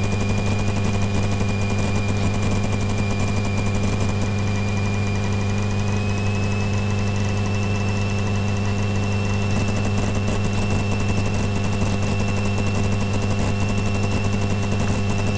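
Single-engine light aircraft's piston engine and propeller running steadily at low taxi power, a constant low drone heard from inside the cockpit. A thin, faint high whine sits above it and rises a little about six seconds in.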